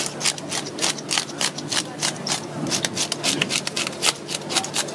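Hand fish scaler scraping the scales off a gold spot wrasse on a wooden cutting board, in quick, repeated rasping strokes, several a second.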